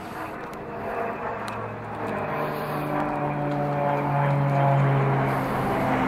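An engine running with a steady low hum, growing louder and at its loudest near the end.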